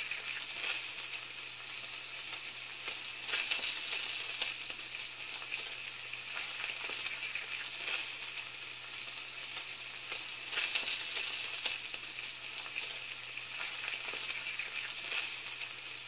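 Food sizzling and frying in a hot pan: a steady crackling hiss with scattered louder pops.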